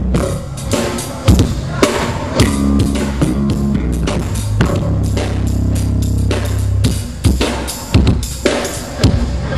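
A live band playing instrumental music at a sound check: drum kit with kick and snare hits over sustained bass and guitar chords, no vocals.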